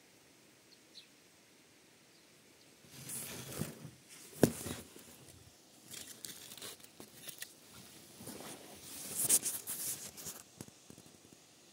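Leaves rustling and crinkling as they are handled close to the microphone, starting about three seconds in, with a sharp crack about four and a half seconds in and another loud burst of crinkling near nine to ten seconds.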